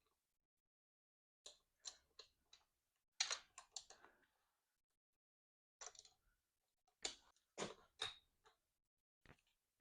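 Scattered faint clicks and light taps from e-trike parts and fasteners being handled during assembly, in small clusters with quiet gaps between.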